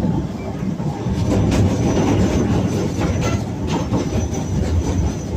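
Blackpool Standard tram no. 147 running, heard on board: a steady rumble of its wheels and running gear, with a few sharp clicks and a faint thin high whine.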